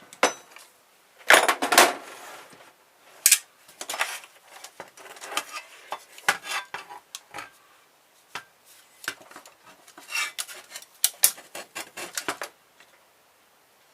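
Sharp metallic clinks and clatter of a screwdriver and small metal parts being handled while a car stereo's metal chassis is taken apart, in irregular clusters of knocks that stop near the end.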